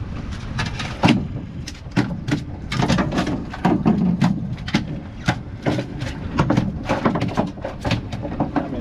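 Irregular knocks and clicks of people moving about and handling gear on a small fishing boat, over steady wind and water noise.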